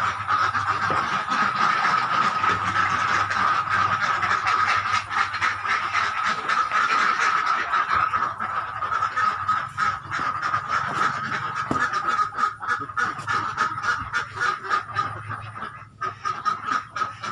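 Domestic ducks quacking, many at once in a dense, continuous chatter that thins out somewhat near the end.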